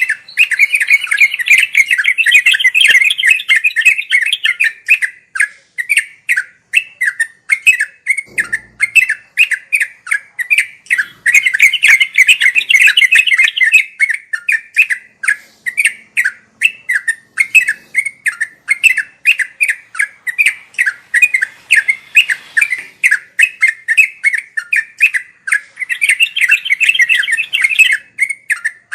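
Yellow-vented bulbul (trucukan) calling in a fast, unbroken run of short chattering notes, several a second. The notes thicken into dense bursts of chatter three times: near the start, in the middle and near the end.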